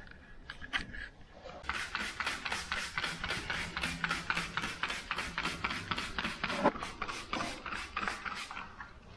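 Trigger spray bottle pumped rapidly, about four hissing squirts a second, soaking wallpaper with water to loosen it. There is one louder knock about two-thirds of the way through.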